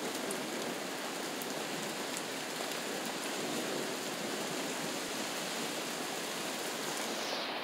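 Steady rain falling, with scattered sharp drop hits; it begins to fade near the end.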